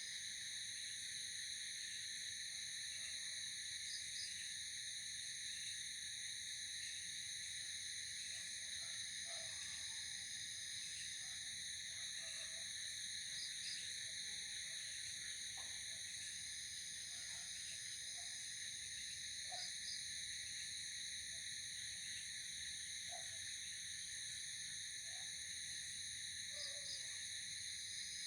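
Night insect chorus: a steady, many-layered high-pitched trilling, with a brief double chirp recurring every several seconds and faint short low calls from other animals scattered through.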